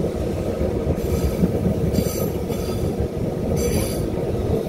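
Heritage electric tram running along the track, a steady low rumble of wheels on rail, with a few brief high-pitched wheel squeals.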